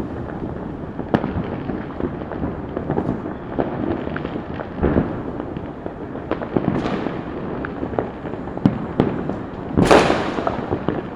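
Many firecrackers bursting at once at varying distances: a continuous crackling din with frequent sharp bangs of differing loudness, the loudest about ten seconds in.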